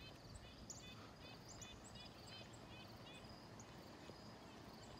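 Quiet outdoor ambience with faint, short high chirps repeating evenly, about three a second.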